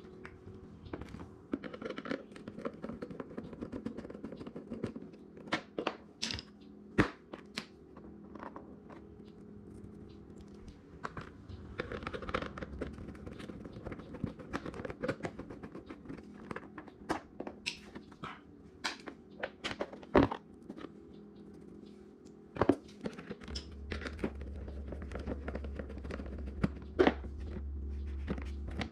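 Hand tools and plastic body panels on a Razor Dirt Quad being handled: scattered clicks, knocks and scrapes of tool on bolts and plastic as a footrest panel is unfastened, with a few sharper knocks standing out. A low hum comes in near the end.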